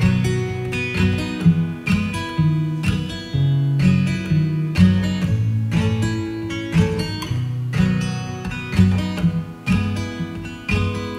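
Acoustic guitar playing an instrumental song intro, chords over a bass note that changes every second or so.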